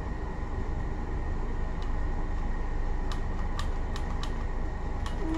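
Steady hum of room air conditioning, with about six light plastic clicks in the second half as a small plastic toy is fiddled with in the hands.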